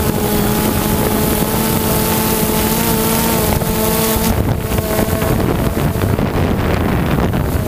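DJI Phantom 2 quadcopter's electric motors and propellers humming steadily, heard through the GoPro slung beneath it, with wind buffeting the microphone. About four seconds in, as the drone descends, the hum changes pitch and fades, and a rough wind rumble takes over.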